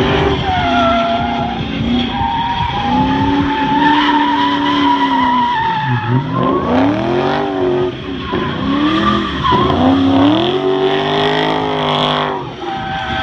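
Holden VE Commodore SS-V's V8 drifting, engine revs rising and falling as the rear tyres spin and squeal. The engine pitch drops sharply twice around the middle and climbs again each time.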